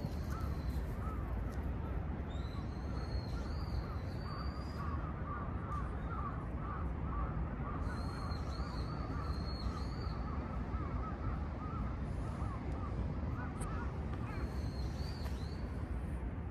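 Birds calling and chattering over a steady low outdoor rumble, with higher calls coming in three spells.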